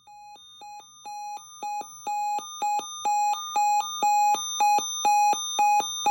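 Electronic emergency alert tone: a rapid run of short beeps, about three or four a second, switching between a lower and a higher pitch and growing louder in steps. It is the attention signal that opens a severe thunderstorm watch alert broadcast.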